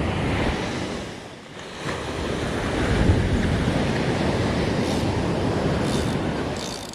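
Wind buffeting the microphone over the steady wash of ocean surf breaking on a sand beach, easing briefly about a second and a half in.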